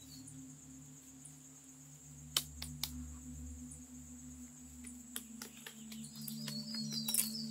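Forest ambience: a steady high insect drone over a low steady hum, a few sharp clicks about two and a half seconds in, and a bird chirping rapidly near the end.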